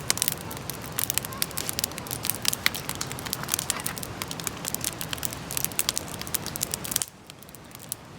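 Wood campfire crackling, with many sharp pops and snaps over a steady hiss of burning. About seven seconds in the sound drops suddenly quieter, with fewer pops.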